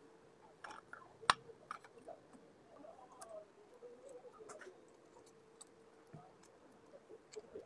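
Scattered light clicks and taps of hand tools and metal engine parts being handled during motorcycle clutch work, with one sharper click about a second in. A faint steady hum runs underneath.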